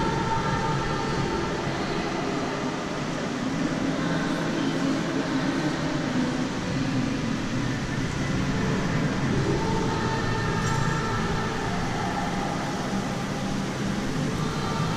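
Steady background din of a large indoor shopping arcade: crowd murmur and ventilation hum blended into one even noise, with faint indistinct voices now and then.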